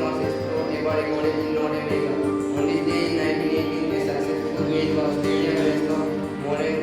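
Music with a slow melody of long held notes.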